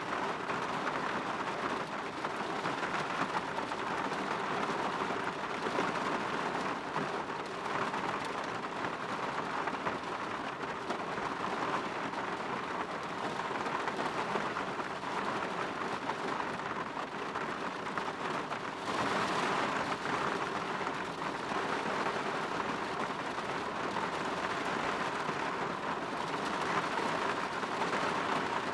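Steady rain falling on a window pane, an even patter that swells briefly about two-thirds of the way through.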